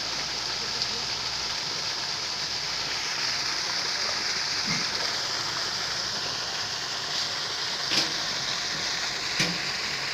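Steady rush and splash of churning pond water, with a few short sharp knocks, the loudest two near the end.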